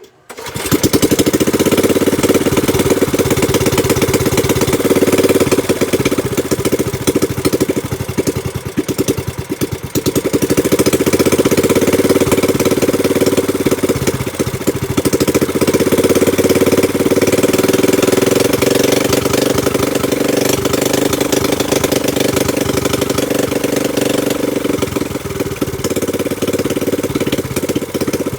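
Small gasoline boat engine, running on a new replacement carburetor after its old one gummed up from more than a year of storage. It runs steadily and loudly, starting abruptly just after the beginning, and the speed sags briefly twice, around a third and a half of the way through.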